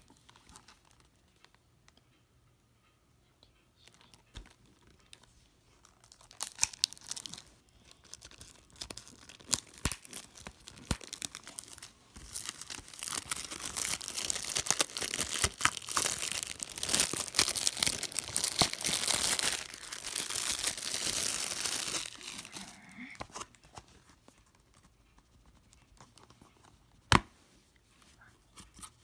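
Plastic shrink wrap being torn and crinkled off a DVD case: a few sharp rips, then a long stretch of dense crackling crinkle, which stops suddenly. Near the end, a single sharp snap as the plastic DVD case is opened.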